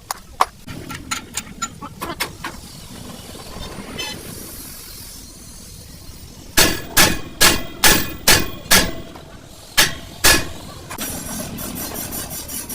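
Hammer striking metal: a string of lighter taps, then a run of heavy blows about two a second, and two more after a short pause, with faint rapid ticking near the end.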